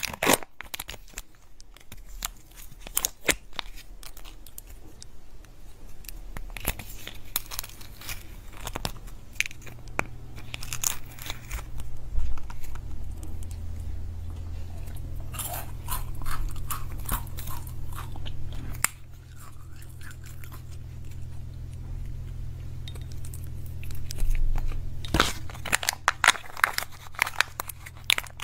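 Close-up crinkling, crunching and clicking of Kinder Joy egg packaging and plastic capsules being handled and opened, with a steady low hum underneath from about a quarter of the way in.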